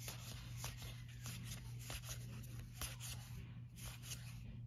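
Faint handling of Magic: The Gathering trading cards: soft slides and light clicks as cards are moved through a hand-held stack, over a low steady hum.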